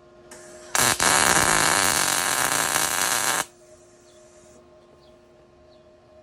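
MIG welder arc crackling through one weld of about two and a half seconds, with a brief break just after it strikes. A faint hiss comes just before the arc and lingers about a second after it stops, over a steady low hum.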